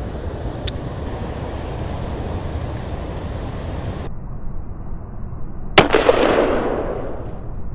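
Steady wind and water noise, which turns duller about four seconds in. Near six seconds comes a sudden loud splash that trails off over a second or so: a striped bass striking at the water's surface.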